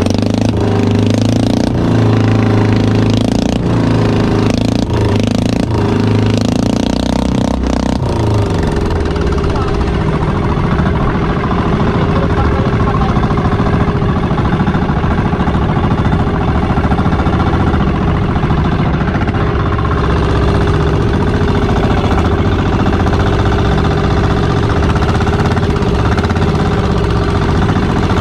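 Engine of a motorized outrigger fishing boat running, a loud rapid pulsing beat; its tone shifts during the first several seconds, then holds steady.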